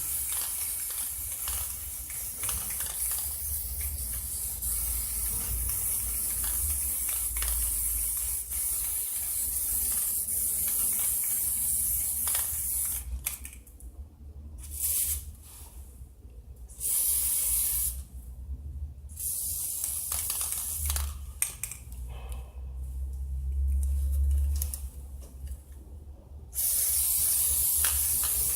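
Spray paint hissing from an aerosol can, with alkyd enamel being sprayed onto plastic chair parts. It sprays steadily, then stops and starts several times in the second half.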